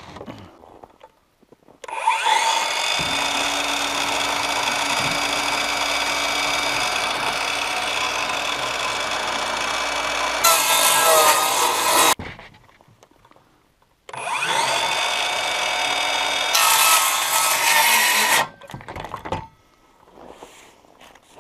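Power circular saw ripping a sheet of plywood in two cuts. The motor spins up with a rising whine about two seconds in and cuts steadily for about ten seconds, growing louder and harsher just before it stops. After a two-second pause a second, shorter cut follows, again louder near its end, and the motor winds down.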